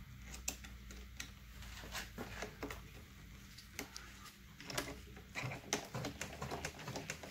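Light, irregular clicks and taps from a small flathead screwdriver and gloved hands working the main jet out of a small-engine carburetor, over a low steady hum.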